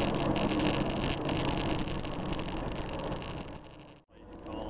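Steady engine drone and road noise inside a truck cab on a wet freeway. It fades out to near silence about four seconds in, then fades back in.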